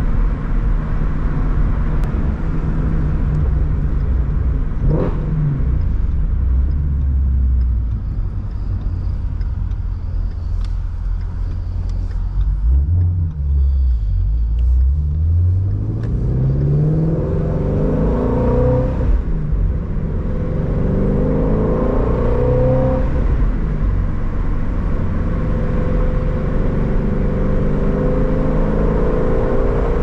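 Ford Mustang Shelby GT350's 5.2-litre flat-plane-crank Voodoo V8 running with a low steady rumble, then accelerating from about halfway through. Its pitch climbs, falls back sharply once about two-thirds of the way in, and climbs again.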